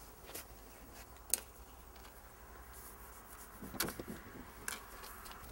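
Faint rustling and scattered ticks of a utility knife slicing through greenhouse polyethylene film along a door seam, with one sharper click about a second in.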